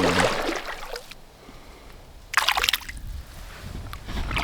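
A hooked brook trout splashing at the surface of a stream, in two bursts: one at the start and a sharper one about two and a half seconds in.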